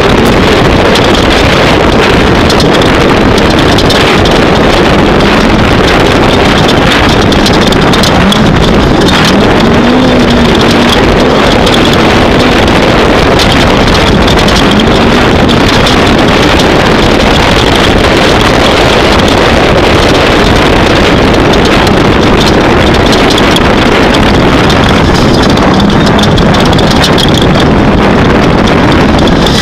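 Off-road race vehicle's engine running hard at speed, a loud, continuous drone whose pitch wanders up and down, mixed with heavy wind and road noise on the microphone.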